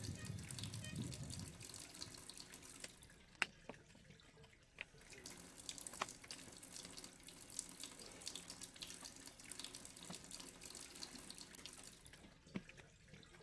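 Wet clay squelching and crackling as a potter kneads and presses it by hand, with a few sharp taps, one of them louder about three seconds in. A low rumble runs through the first second or so.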